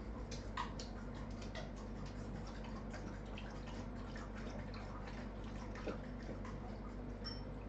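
Faint irregular ticking and clicking, several small clicks a second, over a steady low electrical hum.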